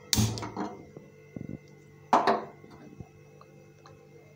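Gas stove burner under a kadai being turned on and lit: a sudden burst of noise at the start and a louder one about two seconds in.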